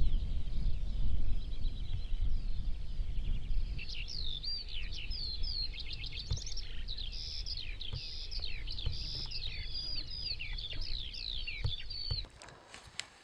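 Low rumble of a horse herd galloping over soft ground, with many birds chirping and whistling above it, densely from about four seconds in. It all cuts off about a second before the end.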